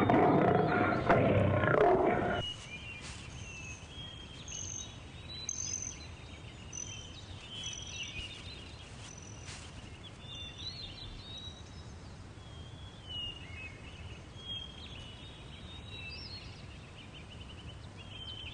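An adult male lion growls for about two and a half seconds, a warning sign of irritation at a cub pestering him. After that, birds chirp on and off, high and faint, over a quiet background.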